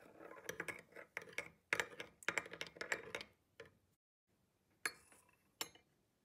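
A metal teaspoon stirring tea in a porcelain teacup, clinking rapidly and unevenly against the cup for about three and a half seconds. After a short pause come two more single sharp clinks, about a second apart.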